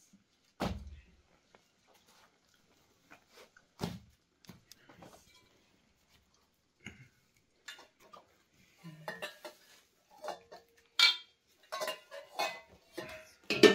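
Steel bowls and a metal ladle clinking and knocking during a meal: scattered taps at first, then a busier run of sharper metal clinks in the last few seconds as soup is ladled from a steel bowl.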